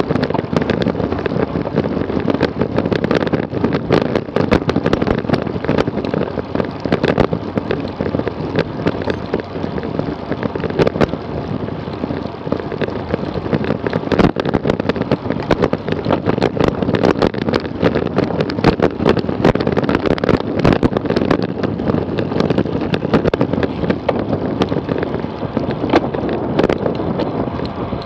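Wind rushing over the camera's microphone on a road bike riding at speed, with tyre and road rumble and many sharp clicks and knocks from the bike and camera mount over bumps.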